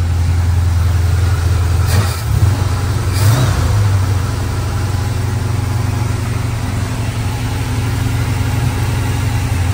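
GM Performance crate 350 small-block V8 idling on its carburetor while it warms up after a cold start. The engine note wavers briefly about two and three seconds in as the carburetor is worked by hand.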